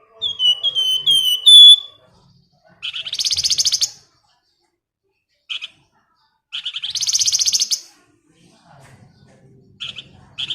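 Flamboyan songbird singing: a quick run of about five short falling whistles, then two long rapid rattling trills a few seconds apart, with short chirps between.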